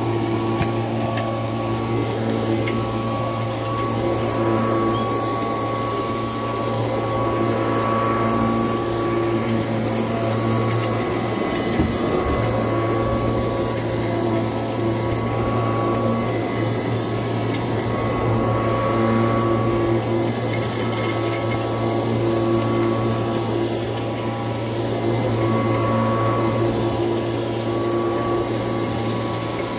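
1986 Kirby Heritage II upright vacuum cleaner running steadily while pushed back and forth over a rug, with a gritty crunch as it picks up debris. The motor's hum and whine swell and ease a little with each stroke.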